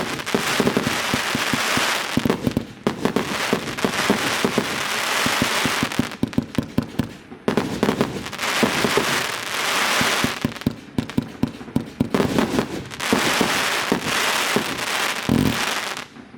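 Consumer fireworks cake firing: rapid strings of launch pops and bangs over a crackling hiss, coming in several waves with short breaks between.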